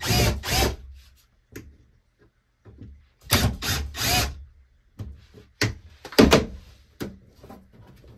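Clunks and scraping from hands and tools working on a grinder pump's discharge hose to get it loose, in uneven bunches of two or three strokes with gaps between.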